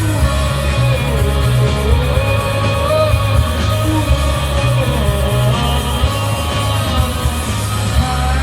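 Rock band playing live: a sung vocal line over electric guitar, bass and drums, recorded on a smartphone with a heavy, boomy low end.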